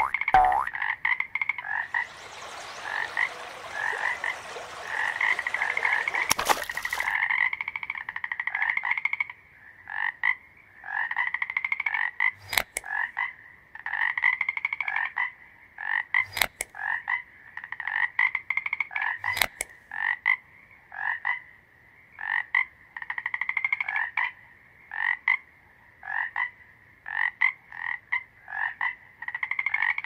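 Frogs croaking, a run of short pulsed calls that overlap thickly for the first few seconds and then come about once a second. A steady hiss lies under the calls for several seconds early on, and a few sharp clicks stand out later.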